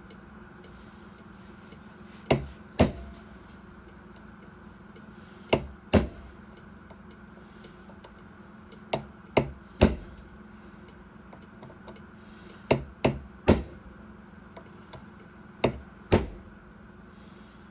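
Hammer tapping a pin punch to drive out a pocket knife pin: about a dozen sharp metal strikes, in groups of two or three a few seconds apart, over a steady low hum.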